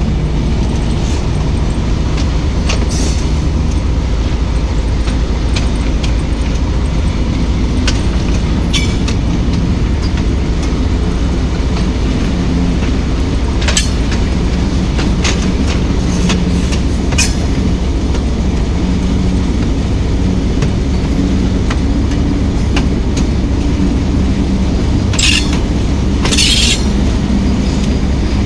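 Hitachi-built diesel locomotive under way, heard from the cab: a steady low engine drone with the rattle of the running train. Sharp clicks come a little past the middle, and two short high squeals or hisses come near the end.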